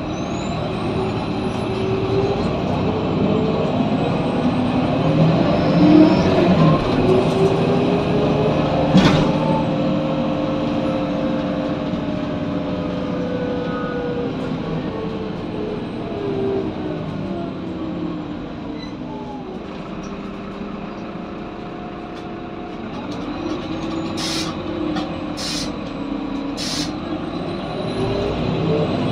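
Heuliez GX 427 articulated diesel city bus heard from inside the passenger cabin while under way. The engine's pitch climbs over the first few seconds, sinks slowly as the bus eases off, then climbs again near the end. There is a sharp click about nine seconds in, and three short air hisses a few seconds before the end.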